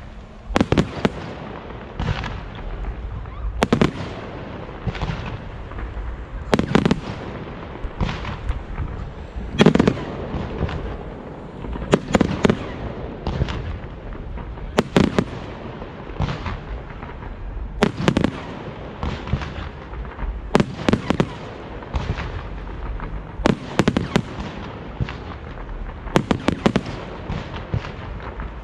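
Fireworks display: shells bursting one after another, a sharp bang about every one to two seconds over a steady rumble and crackle.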